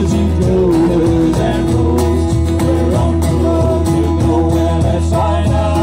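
Live country-style band playing: strummed acoustic guitars over an electric bass line and a cajon beat, with a sung melody.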